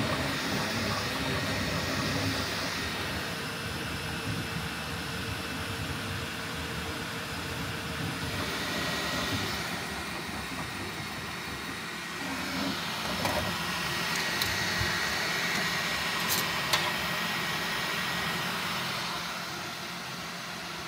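Bambu Lab 3D printer running a multicolor print: a steady whir of fans and motors with a thin, steady high tone and a hiss that swells and fades every few seconds. A few sharp ticks come in the second half.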